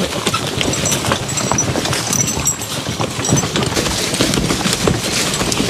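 Canoes loaded with gear rolling on wheeled carts along a leaf-covered trail: a steady, dense rattle and crunch of wheels, dry leaves and footsteps.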